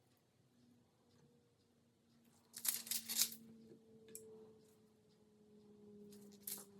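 Two short bursts of crinkly rustling from thin sheet material being handled, the louder one about two and a half seconds in and a shorter one near the end, over a faint steady hum.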